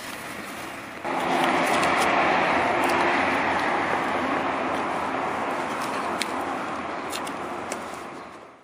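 Road traffic: a vehicle's engine and tyre noise come in abruptly about a second in and slowly fade away, with a few light clicks on top.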